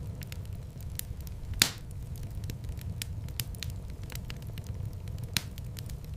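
Fire crackling steadily over a low rumble of the flames, with many small snaps. There is a louder pop about a second and a half in and another near the end.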